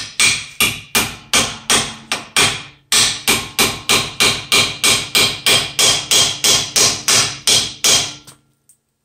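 A hammer pounding a new, tight-fitting latch pin into the quick-attach coupler of a New Holland L175 skid loader: about twenty evenly spaced ringing strikes, a little over two a second, with a brief pause about three seconds in, stopping shortly before the end.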